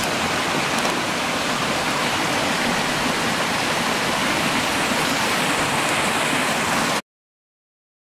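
Steady rush of running water at concrete trout ponds, cutting off suddenly about seven seconds in.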